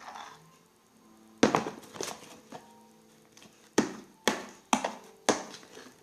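A series of sharp knocks and taps of a utensil against the pot as thickening slime is stirred: one loud knock about a second and a half in, a few lighter taps after it, then four strong knocks close together near the end. Soft background music runs underneath.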